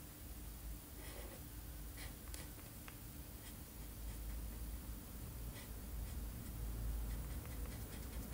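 Marker pen rubbing on paper in short coloring strokes, faint, with a few light scratches of the tip, over a low steady hum.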